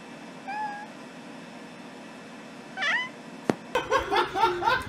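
Cat meowing: a short, quiet meow about half a second in, then a louder meow that rises and falls. After a sharp click, a fast run of short, high cries follows, several a second.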